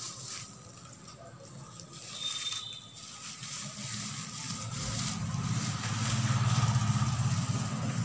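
A motor engine running steadily, its low rumble growing louder in the second half.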